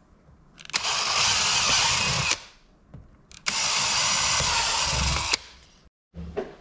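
Power drill with a 3/16-inch bit boring holes through half-inch PVC board, in two runs of about two seconds each, separated by a short pause.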